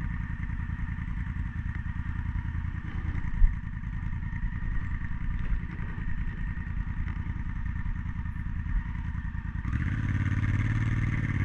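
Honda Africa Twin's parallel-twin engine running steadily as the bike is ridden along a dirt road. There is a single sharp knock about three and a half seconds in. The engine grows a little louder and brighter near the end.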